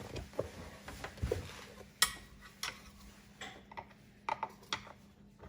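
Scattered light clicks, ticks and knocks of hands and tools handling a small 2-gallon air compressor as it is opened up; the compressor itself is silent.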